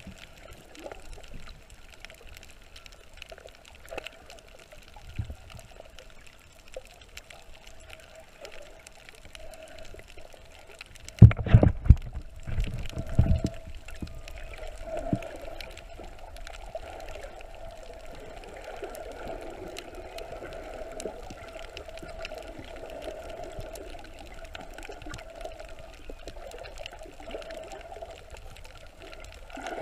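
Muffled water sounds picked up by a camera held underwater: steady gurgling and trickling, with a cluster of heavy low thumps lasting about two seconds, about eleven seconds in.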